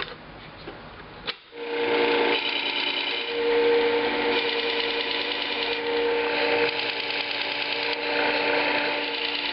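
A click just over a second in, then a motorized abrasive-disc sharpener starts up and runs with a steady hum while a steel chisel's bevel is ground on the coarse 120-grit disc, the first flattening stage.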